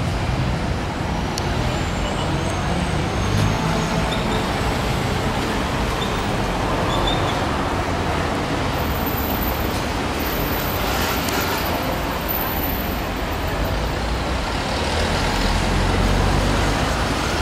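Steady street traffic noise from road vehicles, with a heavier low rumble swelling near the end.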